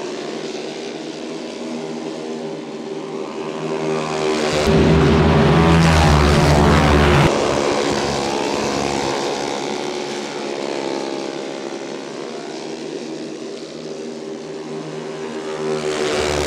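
A pack of racing go-karts with Briggs & Stratton single-cylinder flathead engines running at speed, their engine notes rising and falling in pitch as they pass. The loudest pass comes about five seconds in and cuts off abruptly a couple of seconds later.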